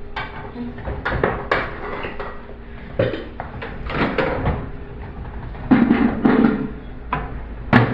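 Irregular knocks and clattering of objects being handled, as of cups, containers or a cupboard door, with a louder cluster of clatter about six seconds in.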